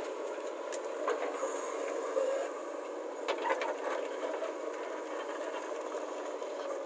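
Heavy diesel machinery, a backhoe loader and a tractor, running steadily, with a few short knocks and clanks about one, two and three and a half seconds in.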